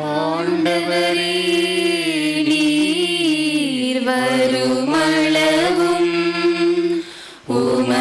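Sung memorial acclamation of the Catholic Mass in Tamil: voices chanting a melody in phrases over held accompanying notes, with a short break about seven seconds in.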